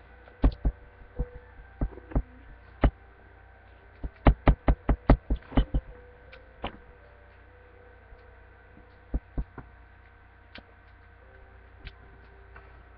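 A series of dull knocks and thumps: a few spaced out at first, then a quick run of about nine at roughly five a second in the middle, then a few scattered ones. A steady low electrical hum runs underneath.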